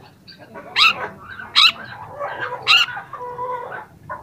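Young long-tailed shrike singing: three loud, brief, harsh notes about a second apart, with softer chattering phrases and a couple of short held whistles between them.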